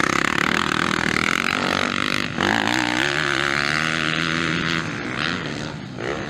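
Motocross dirt-bike engines revving hard as riders accelerate around the track, the pitch rising and falling with throttle and gear changes, with an abrupt change to another bike about two and a half seconds in.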